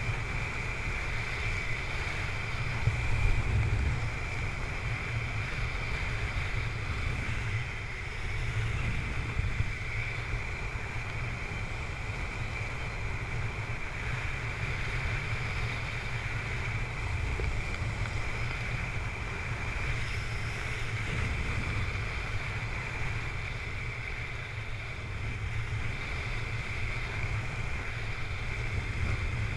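Airflow buffeting the camera microphone during a descent under an open parachute: a steady low rumble with a thin, steady high whine over it, briefly louder about three seconds in.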